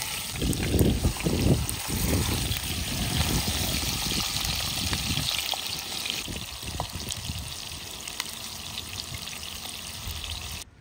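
Food sizzling in a hot frying pan, loudest in the first few seconds and slowly dying down, with a few light clicks and some heavier knocking early on. The sound cuts off suddenly just before the end.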